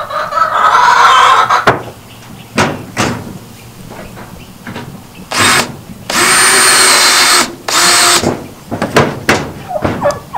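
Power drill driving roofing screws into sheet-metal roofing: a short burst, then one steady whining run of about a second and a half, then another short burst, a little past the middle. Near the start there is another loud sound of about a second and a half.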